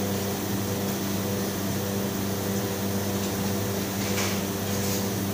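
Steady machine hum with a low pitched drone from commercial kitchen refrigeration and ventilation equipment. There are a couple of faint light clicks a little past four seconds in.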